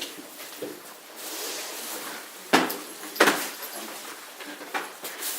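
Two sharp bangs about two and a half seconds in, roughly 0.7 s apart, with a few fainter knocks around them.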